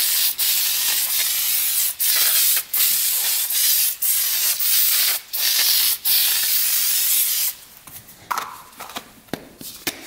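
Aerosol can of foam air-filter oil spraying onto a foam air filter: a hiss in several long bursts with brief breaks. It stops about three quarters of the way in, leaving faint handling noises.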